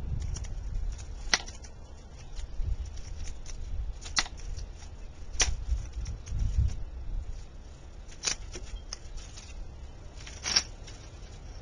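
Hands handling small objects on a tabletop: five sharp clicks a second or more apart, with light rustling in between, over a steady low rumble.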